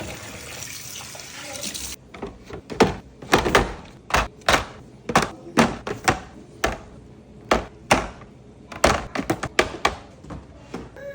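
A steady hiss that cuts off suddenly about two seconds in, then a run of irregular knocks and clunks as hard fridge containers and shelves are handled and set down.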